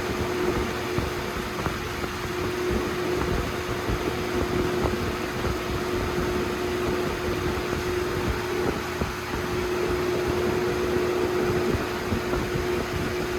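Holmes HABF-20 box fan running on high: a loud, steady rush of air with a steady hum through it.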